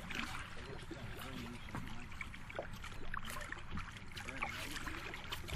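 Water splashing and sloshing at the side of a boat as a caught redfish is held in the water and moved back and forth to revive it before release, with faint voices in the background.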